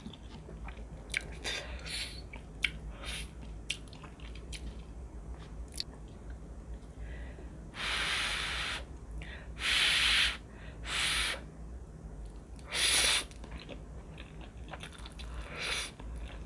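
Close-miked mukbang eating: soft chewing with small mouth clicks, then loud slurps of instant ramen noodles, four big slurps in the middle stretch and smaller ones near the end.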